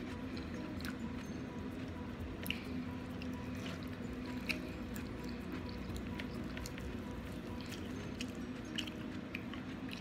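Close-miked eating: chewing and wet mouth sounds, with scattered short clicks of a metal fork picking meat off brown stew chicken on a plate, over a steady low hum.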